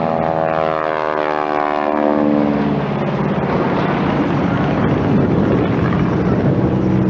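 Propeller-driven airplane flying past at speed, its engine drone sliding down in pitch over the first three seconds as it goes by, then continuing as a steady engine noise.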